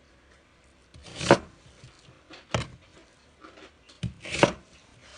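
Kitchen knife chopping food on a cutting board: a few irregular strokes, two short sharp knocks and two longer, noisier cuts, the loudest about a second in.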